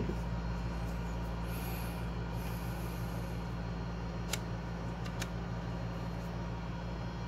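A laser-flashlight combo unit is slid onto a pistol's accessory rail: a light scraping about two seconds in, then two sharp clicks about four and five seconds in as it seats. A steady low hum runs underneath.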